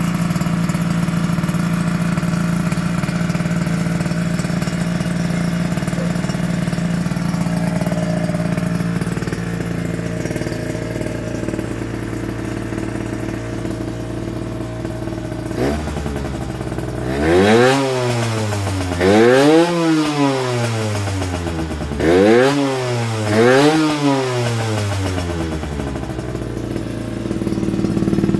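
Yamaha RZ50's small two-stroke single, breathing through a BEET expansion chamber, idles steadily and is then blipped four times in two pairs with no load. Each blip sweeps quickly up in pitch and falls back before it settles into idle again.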